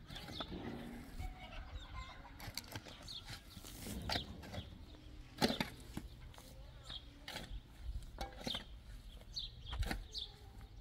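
Steel shovel scraping and striking stony dirt, a sharp scrape or clink every second or two, as the soil is spread and levelled.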